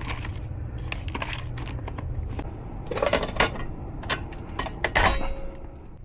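Metal tools clinking and rattling as a tool bag is handled and carried, over a steady low hum that fades near the end.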